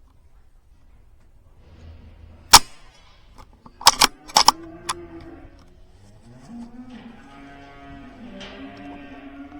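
One sharp crack of a silenced .22 BSA Super 10 air rifle shot about two and a half seconds in, the loudest thing here, followed a second or so later by a quick run of sharp clicks and knocks. Then cattle roaring in long low calls that rise and fall.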